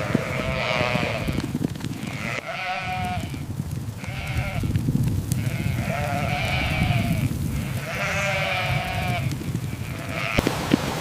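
Sheep bleating repeatedly: about six separate bleats, each under a second long with a wavering pitch, over a steady low background rumble.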